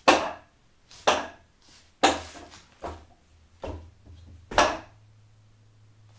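Arms, hands and a foot striking a Wing Chun wooden dummy's wooden arms and leg: six sharp wooden knocks roughly a second apart, the first the loudest.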